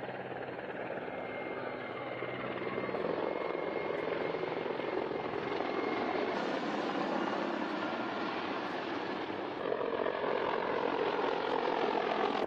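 Military attack helicopter running: dense rotor and turboshaft engine noise, with a thin high turbine whine through the first half and the sound slowly growing louder.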